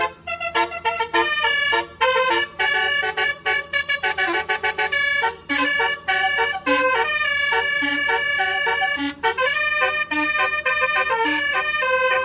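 Indonesian bus 'telolet' musical air horn, very loud, playing a quick tune of short notes with brief breaks between phrases, the notes growing longer near the end.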